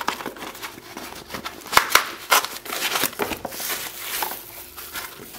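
Cardboard box flaps being opened and a sheet of foam packing unwrapped by hand: rustling and crinkling, with a few sharp clicks about two seconds in.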